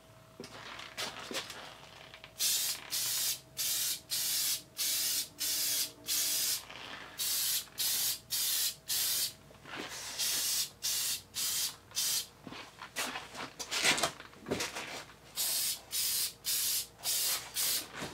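Aerosol spray can sprayed in short hissing bursts, about two a second, with a couple of brief pauses, and a few sharper clicks about two-thirds of the way through.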